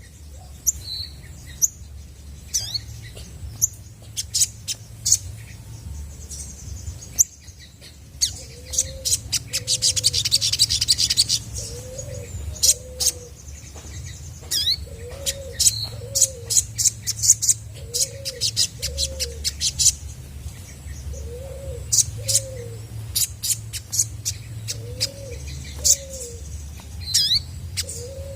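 Olive-backed sunbird singing: sharp, high chirps throughout, with a fast trill about a third of the way in. A low two-note cooing call repeats every few seconds beneath it.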